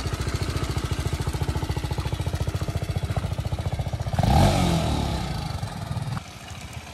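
Motorcycle engine running with an even, fast beat, then revving briefly about four seconds in, the pitch falling back as it eases off, and quieter after that.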